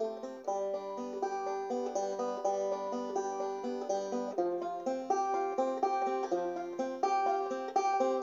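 Background music: quick plucked banjo notes in a bluegrass style.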